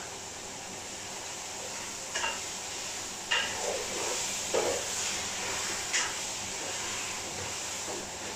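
A cooking utensil knocking and scraping against a metal pot while tomatoes are stirred and sautéed, with a steady frying sizzle underneath; four or five sharp clacks spread through.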